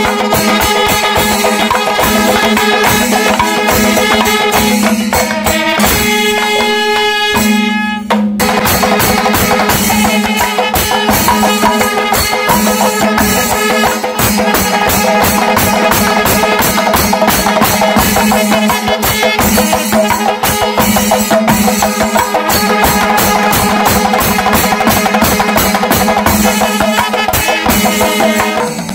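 Kerala kombu, long C-shaped brass horns, blowing sustained calls over fast, dense drumming with metallic clashes from a temple percussion ensemble. About six seconds in the horns hold one clear tone for a couple of seconds, and there is a brief break about eight seconds in before the ensemble carries on.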